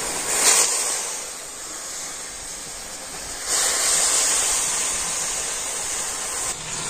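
Hot water in a kadai hissing and sizzling as lumps of sugarcane jaggery are dropped into it to melt. The hiss swells briefly about half a second in and again, louder, from about three and a half seconds, then falls back near the end.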